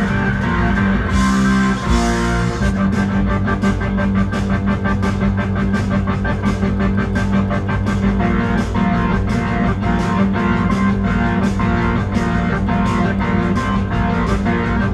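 Nord Stage stage keyboard played with a rock-organ sound: a fast riff of evenly pulsed repeated notes and chords that runs without a break.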